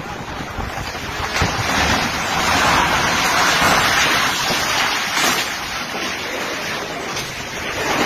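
Storm-force wind gusting and buffeting the microphone as a steady rushing noise that swells to its loudest a few seconds in and eases off, with a few short knocks among it.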